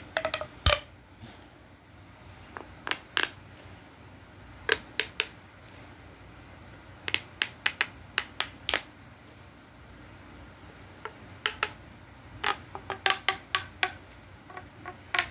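Silicone pop-it fidget bubbles being pressed through, giving sharp popping clicks in small irregular clusters of two to six, with short pauses between.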